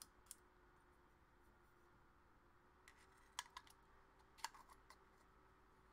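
Mostly near silence, with a few faint light clicks of Super Takumar 300mm f/4 lens parts being handled during reassembly: a small cluster about three and a half seconds in and another around four and a half seconds.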